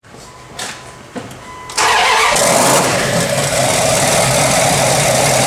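Twin-turbo 5.2 L Magnum V8 with a big cam, started for the first time: it catches about two seconds in and then runs loudly and steadily.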